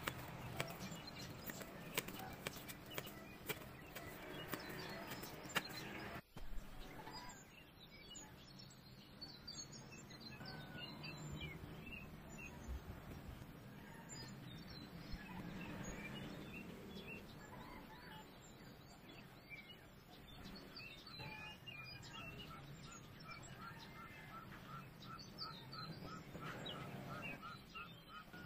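Light clicks and snaps of photocards being handled and flipped through by hand for the first six seconds, then background birds chirping. Near the end one bird repeats a short note about three times a second.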